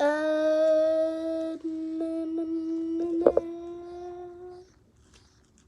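A child humming one long held note that creeps slightly upward, breaking briefly once, for about four and a half seconds, with a couple of clicks partway through.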